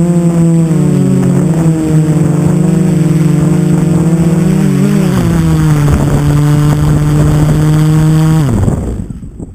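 QAV500 quadcopter's brushless motors and propellers whining at close range, the pitch shifting with throttle as it comes down to land. Near the end the motors spin down and stop.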